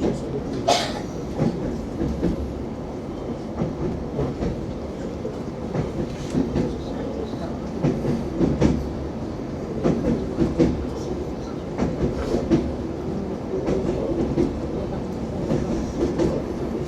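ES2G Lastochka electric train rolling along, heard from inside the carriage: a steady rumble with the clickety-clack of wheels over rail joints coming in clusters every second or two. There is a sharp click about a second in.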